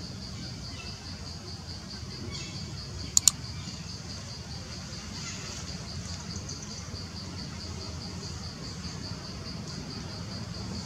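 Insects chirping in a steady, high, evenly pulsing trill over a low rumble, with two sharp clicks a little over three seconds in.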